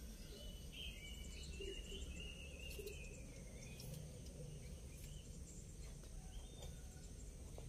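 Faint background birds chirping several times in the first three seconds, over a steady low hum and a faint steady high whine, with a few light clicks.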